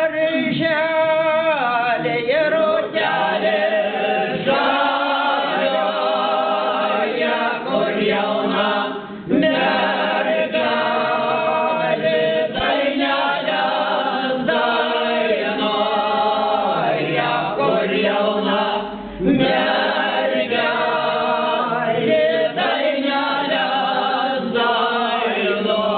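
Mixed folk choir of women and men singing a cappella, a slow song in long phrases, with brief breaks between phrases about nine and nineteen seconds in.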